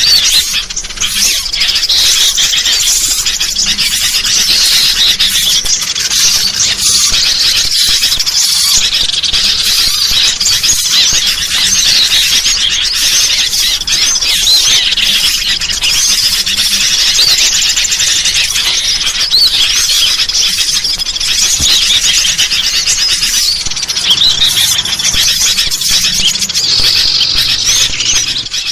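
A dense, unbroken chorus of chattering sooty-headed bulbuls mixed with the high chirps of small birds, many short squeaky calls overlapping, dropping away right at the end.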